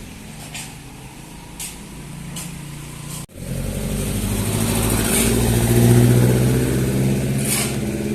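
Motor vehicle engine running at a steady pitch. After a sudden cut about three seconds in, a louder engine sound swells up and holds.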